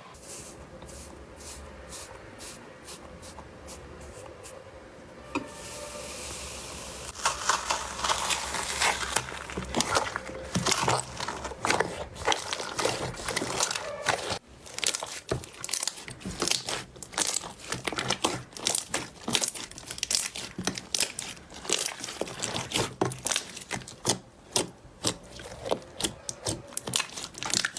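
Slime being squeezed and pressed, making dense, irregular crackling and popping. The sound is softer for the first several seconds and gets loud and busy from about seven seconds in.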